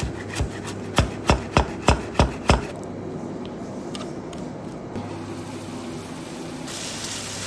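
Chef's knife chopping fresh herbs on a wooden cutting board: six sharp, even strokes about three a second, stopping about two and a half seconds in. Near the end a steady hiss from the hot pan sets in as its lid comes off.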